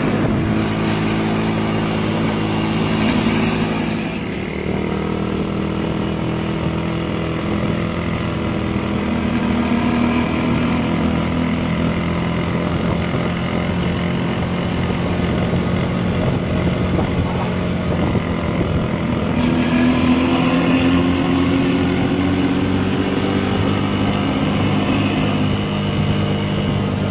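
Diesel bus engine running through a 'ngorok' (snoring) exhaust, a steady deep rumble whose pitch swells a few seconds in and again about twenty seconds in.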